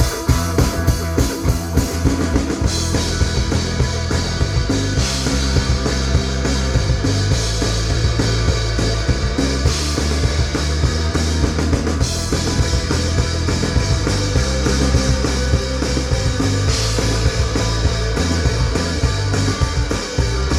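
Rock band playing live, with no vocals: drum kit and bass drum keep a steady beat under dense, loud band music.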